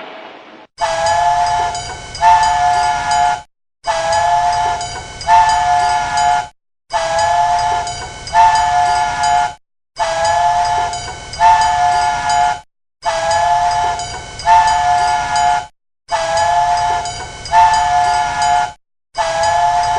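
Train whistle sounding a chord of two tones in two blasts, one long and then a second straight after, over a low rumble. The pair repeats about every three seconds, seven times in all, each cycle cutting off sharply into a brief silence.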